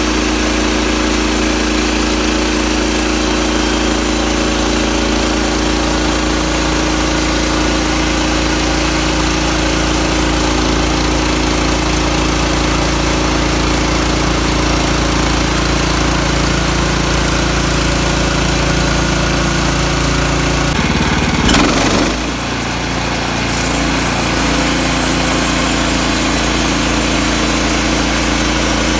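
Portable sawmill's engine running steadily while milling boards from a log. About three-quarters of the way through there is a brief louder burst, after which the engine note shifts.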